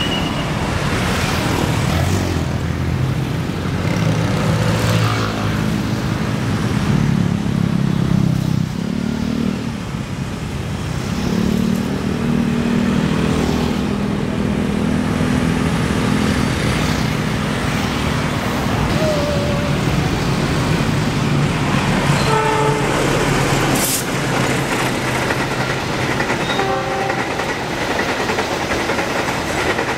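Intercity passenger trains passing close by, several in turn: a steady low rumble of the diesel locomotive's engine and the coaches' wheels running over the rails.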